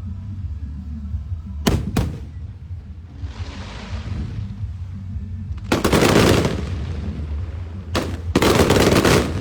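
Fireworks going off: two sharp bangs about two seconds in, then a hissing crackle. Two long, loud bursts of explosions follow, one near the middle and one near the end, over a steady low rumble.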